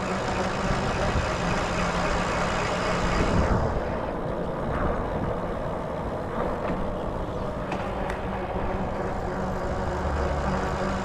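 A motor vehicle running with a steady low engine hum and road hiss; the hiss is loud for the first three and a half seconds, then falls away as the vehicle passes.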